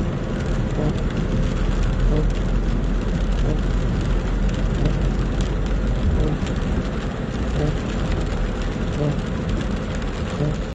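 Car driving through floodwater, heard from inside the cabin: a steady low engine and road rumble with a hiss of water and rain around the car.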